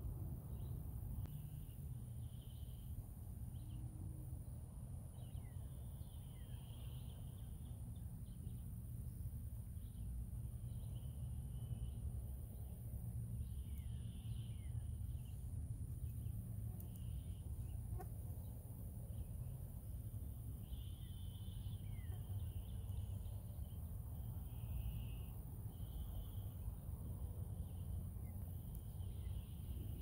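Summer pond-side ambience: insects keep up a steady high-pitched whine while birds give short chirps, trills and quick falling whistles every few seconds, over a steady low rumble.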